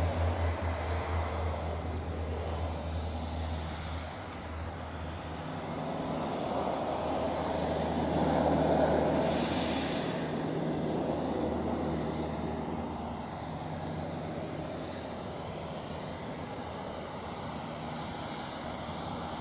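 Aircraft engine noise: a broad rushing sound that swells about eight to nine seconds in and then holds steady, over a low hum that drops away about four seconds in.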